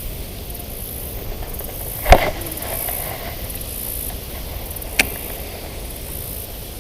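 Steady wind hiss on the microphone, with a sharp loud click about two seconds in and a second, lighter click about five seconds in.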